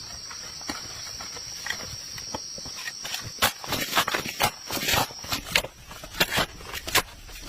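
Insects chirring in a steady high drone that fades out about five seconds in. From about three seconds in there is a quick run of sharp knocks and scrapes, such as handling or working with wood and tools.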